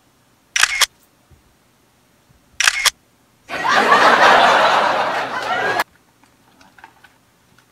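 Two camera-shutter clicks about two seconds apart, much louder than the surrounding talk, followed by a loud rushing noise lasting about two seconds.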